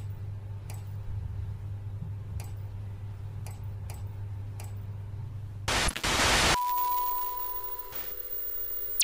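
Electronic surveillance-style sound effects: a steady low electrical hum with faint regular ticks, then a short burst of static about six seconds in, followed by one steady beep lasting about a second and a half.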